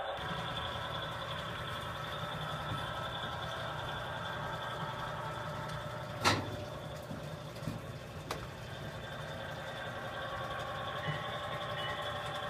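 HO scale model trains running on the layout, a steady hum with several held tones from the locomotives and their wheels on the track. A sharp knock comes about six seconds in, followed by two smaller clicks.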